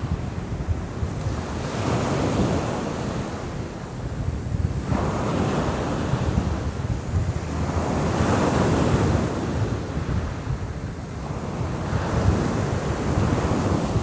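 Sea waves breaking and washing up a pebble beach, swelling and fading every three to four seconds, with wind rumbling on the microphone.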